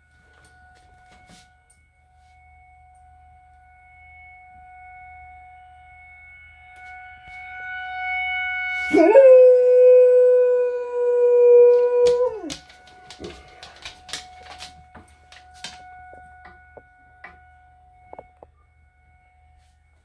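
A tornado siren holds a steady tone in the distance, swelling toward the middle. A Great Dane howls along once, about three seconds long, rising into a flat held note and dropping off at the end. A few sharp clicks follow.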